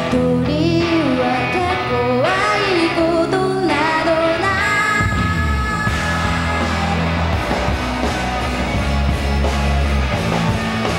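Live rock band playing: a female lead vocal over electric guitar, bass and drums. The singing drops out about halfway through and the band plays on, with a heavier low end.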